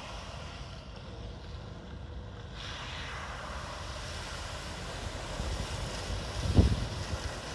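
Wind rumbling on the microphone, with a strong gust about six seconds in, over a steady hiss of water and a distant Land Rover Series III wading through the flooded road.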